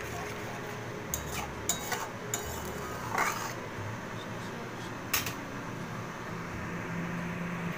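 Metal spatula stirring a thin spice-and-water gravy in a metal wok, clinking sharply against the pan several times in the first couple of seconds and once more about five seconds in.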